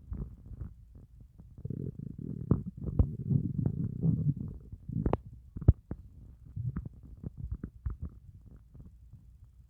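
Empty stomach growling after a fast of over 30 hours: a low, gurgling rumble for a few seconds, then scattered sharp pops and gurgles, the loudest pop about six seconds in. Hunger growls of an empty gut.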